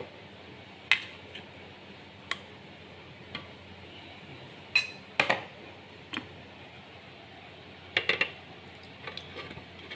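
Scattered clinks and knocks of kitchenware, about ten short sharp taps with pauses between them, as steamed chicken pieces are taken from a stainless steel bowl and put into a blender jar. The blender is not running.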